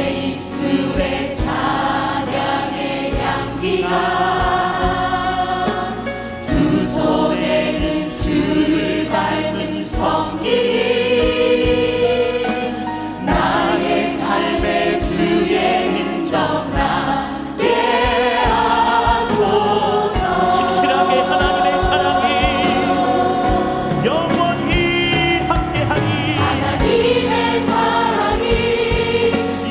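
Choir and congregation singing a Christian praise song with a full band accompaniment and steady drum beats.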